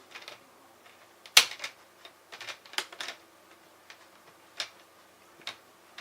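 Plastic clips of a laptop's screen bezel snapping into place as it is pressed down around the lid: a series of irregular sharp clicks, the loudest about a second and a half in.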